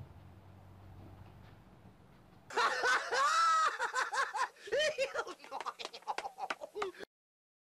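Faint room noise, then about two and a half seconds in, high-pitched laughing and snickering by comedy-sketch characters in quick repeated bouts, cutting off suddenly near the end.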